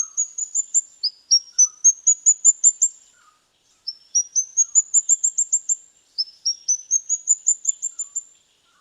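Legge's flowerpecker (white-throated flowerpecker) calling: runs of quick, thin, high-pitched notes, each run climbing step by step in pitch. A run is just ending as the sound begins, three more follow, and there is a longer pause after the second.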